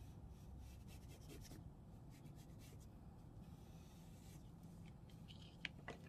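Faint crayon strokes rubbing on paper while coloring, over a low steady hum. Near the end there is a single sharp click.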